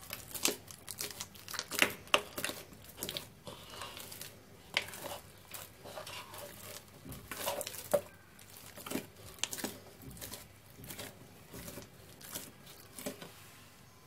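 Hands kneading soft, wet pizza dough in a bowl: irregular sticky squelches, slaps and pulls, stopping near the end.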